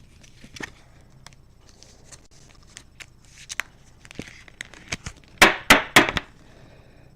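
Trading cards being handled and sorted on a table: scattered light clicks and soft sliding swishes, then three sharp clicks in quick succession a little past halfway.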